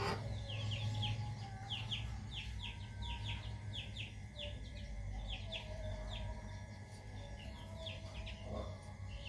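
Young birds peeping: a rapid, irregular run of short, high, downward-sliding peeps, over a steady low hum.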